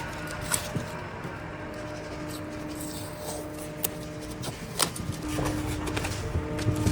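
Hand work on small wooden pieces: scattered light clicks and taps with some rubbing, the sharpest tap a little under five seconds in, over a faint broken hum.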